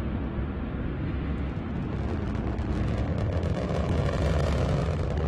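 Antares 230+ rocket climbing on its first-stage engines: a steady low rumble with a rough crackle that grows stronger after about a second and a half.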